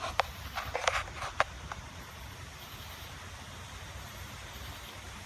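Steady noise of a rainstorm with a low rumble underneath, with a few sharp clicks in the first second and a half.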